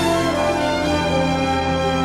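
Theme music with long held chords.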